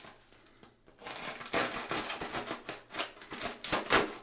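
A padded mailer envelope being slit open with a folding pocket knife and pulled apart. A run of scratchy rustling, tearing and crinkling starts about a second in.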